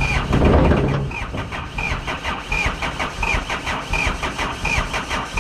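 Hyundai H100's 4D56 diesel engine cranking on the starter motor with its fuel line removed, so it turns over without firing. The cranking goes in an even pulsing rhythm, with a short chirp about every three-quarters of a second. This is a relative compression test, and the engine is turning over evenly with no cylinder short of compression.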